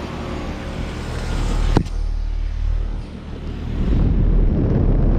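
Carrier Comfort 15 heat pump outdoor unit running in its defrost cycle: a steady low hum, a single sharp clunk a little under two seconds in, then a louder low rushing noise near the end.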